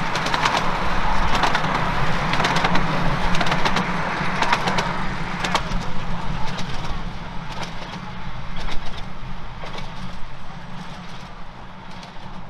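Miniature railway passenger train rolling past, a steady low rumble with scattered clicks from the wheels and coaches, fading as it moves away.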